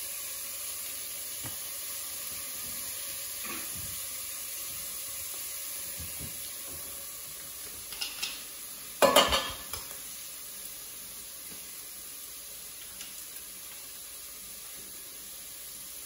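Onion, rosemary and garlic sizzling steadily in a stainless steel pot as they are stirred. About halfway through, a utensil knocks against the pot several times in quick succession.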